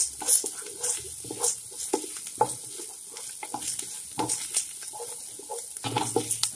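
Wooden spatula stirring and scraping onion, garlic and grated ginger sautéing in hot oil in a pan, with about two strokes a second over a steady sizzle.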